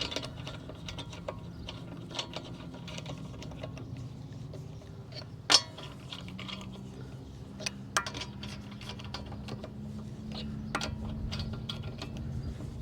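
Hand ratchet on an extension clicking as it runs lug nuts onto a car's wheel studs, with scattered metallic clinks (the sharpest about five and a half seconds in) over a low steady hum.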